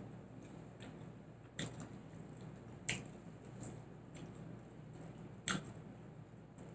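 Close-miked eating sounds of someone chewing chicken wings: scattered wet mouth smacks and clicks, irregularly spaced, the strongest about three and five and a half seconds in.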